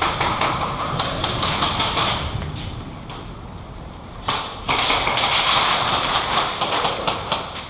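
Footsteps and rustling of clothing and gear close to the microphone, with many quick taps and thuds, louder in the second half, as a player moves on foot.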